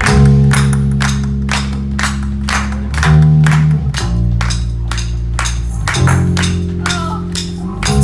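Live rock band playing: two electric guitars, electric bass and a drum kit, held chords changing every couple of seconds over a steady drum beat.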